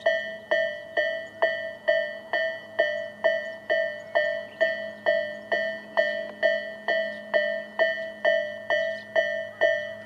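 Japanese railway level-crossing electronic warning bell of the Tobu 'sound A' type, ringing evenly at about two strikes a second, each strike a bright tone that rings and fades: the crossing's alarm sounding for an approaching train.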